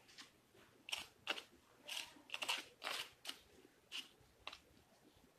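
White plastic spoon scooping and scraping loose, gritty potting mix of garden soil, carbonized rice hull and vermicast: about nine short crisp scrapes, one after another.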